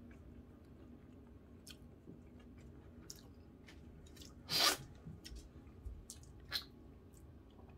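A person eating boiled cockles: quiet chewing with scattered small clicks, and one short, louder rush of noise about four and a half seconds in as a cockle is taken from its shell into the mouth.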